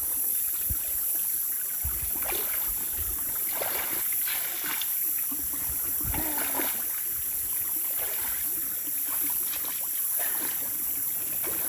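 Steady rushing of water, an even hiss with no pauses or distinct events.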